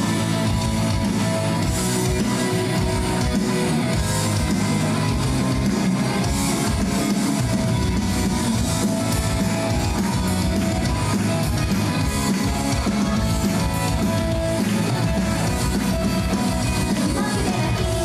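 Loud rock-style pop music with guitar and drums, with singing, from a live idol group stage performance.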